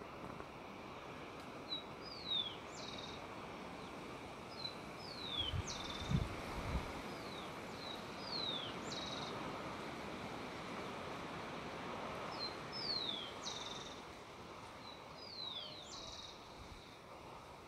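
A small songbird repeating the same short song about five times: a brief note, a falling whistle, then a quick buzzy trill, over steady outdoor background noise. A few low thumps about six seconds in.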